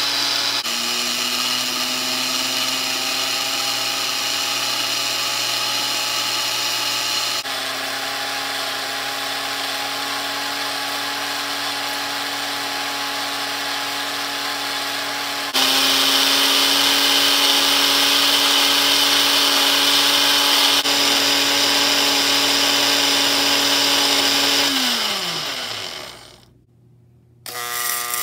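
Lionel 97 coal elevator's electric motor running, driving the bucket chain conveyor with a steady whirring hum that shifts slightly in pitch and loudness a few times. About 25 seconds in, it winds down, falling in pitch, and stops. A second or so later a similar motor whir starts up again.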